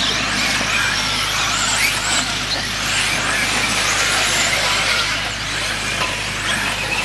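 Several 1/10-scale electric 4WD RC buggies racing on a clay track: high motor whines rise and fall as they speed up and slow down, over steady tyre noise.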